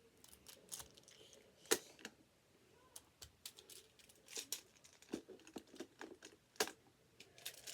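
Plastic magnetic building tiles clacking and snapping together as they are handled and placed on a tower: a series of irregular sharp clicks, the clearest about two seconds in and again near the end.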